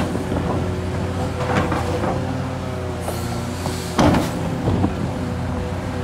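Hitachi Zaxis 670LCR excavator's Isuzu diesel engine running steadily under load as the bucket digs into a bank of red earth, with scraping knocks from the bucket in the soil and stones, the loudest about four seconds in.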